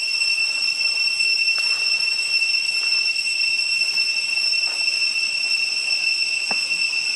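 Steady, shrill insect drone of one unchanging high pitch, with a few faint clicks.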